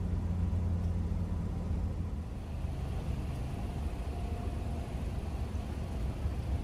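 Low, steady road rumble of a car driving, heard inside the cabin.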